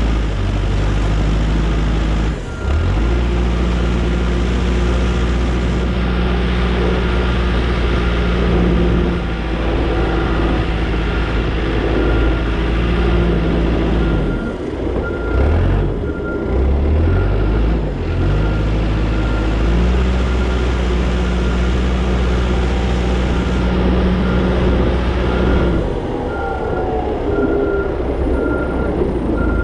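Diesel engine of heavy snow-clearing equipment running steadily under load. Its revs dip briefly early on and rise and fall around the middle. In the second half a backup alarm beeps over it repeatedly.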